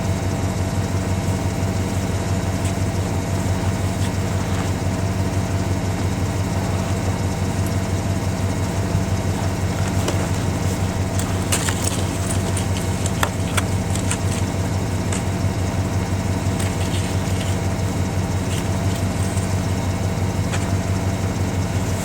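An engine idling steadily, with light crunching clicks now and then around the middle.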